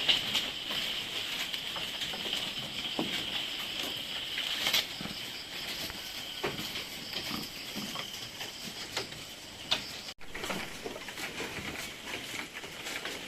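Goats moving about in a pen: scattered knocks and taps of hooves, over a steady high-pitched hiss.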